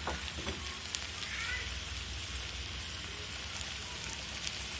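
Two eggs frying in hot oil in a steel pot, a steady gentle sizzle with scattered small pops.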